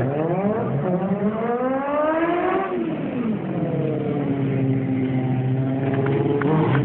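Motorcycle engines revving as stunt riders wheelie past. The pitch climbs for about two and a half seconds, drops off, holds steady, then climbs again near the end.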